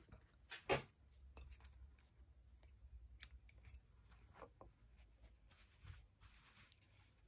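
A single crisp snip of small scissors a little under a second in, then faint rustling and light taps as fabric pieces are handled and smoothed flat.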